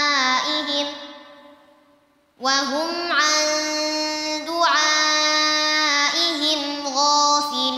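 A boy's voice reciting the Quran in melodic tajweed chant, with long held notes and ornamented turns in pitch. A phrase ends about a second in and fades away in reverb; after a short quiet gap the chant starts again about two and a half seconds in.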